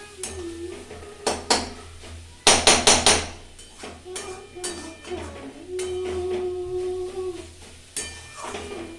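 A woman singing a tune to herself, slightly off-key, with long held notes. Metal cookware clanks over it: a couple of knocks about a second and a half in, then a quick run of four loud clanks around two and a half seconds in.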